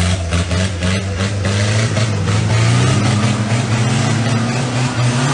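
A 4x4 pickup's diesel engine revving hard under load as it churns up a deep mud track. Its note climbs over the first few seconds and then holds high.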